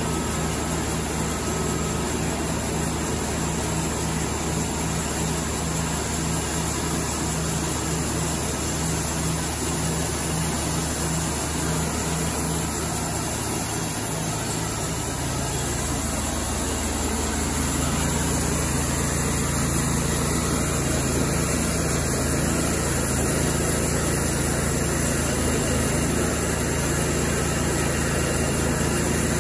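Cook's Saw MP-32 bandsaw mill running steadily, its engine driving the band blade as it saws along a log. About halfway through, the engine note shifts and the sound grows slightly louder.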